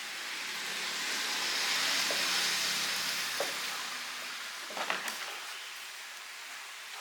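A steady hiss that swells and then slowly eases off, with a couple of short clicks about five seconds in.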